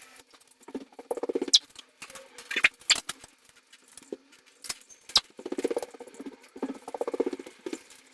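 Food and water dishes being handled in bird cages: several sharp clicks and clatters, with short buzzy rattling bursts about a second in and twice near the end.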